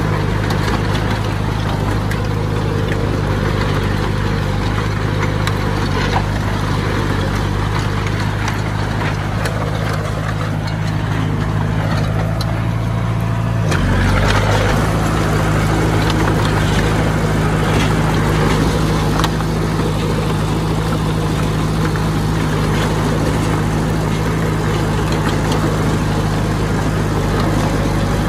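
Heavy diesel engine of earthmoving machinery running steadily, its note shifting slightly about fourteen seconds in, with a few brief clicks or knocks.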